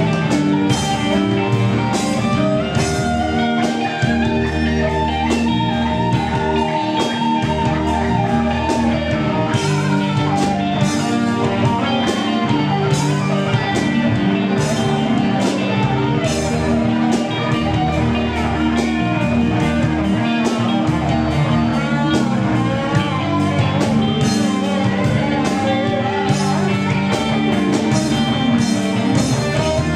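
Live rock band playing, an electric guitar prominent over a drum kit with regular cymbal strikes and some gliding, bent notes.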